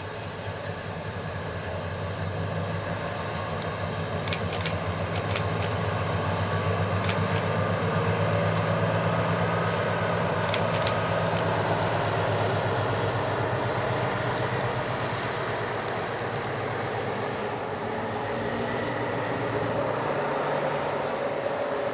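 British Rail Class 60 diesel locomotive running light engine, its eight-cylinder Mirrlees diesel giving a steady low hum that grows louder as it approaches and then holds. A few sharp clicks come from the wheels on the track.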